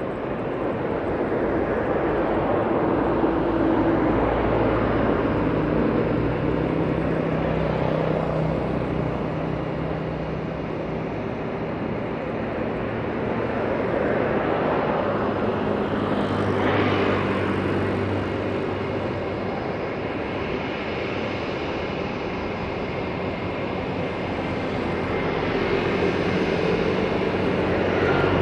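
Airbus A320's IAE V2500 jet engines running with a steady roar and a low hum, swelling and easing in loudness several times, as the airliner goes through its take-off.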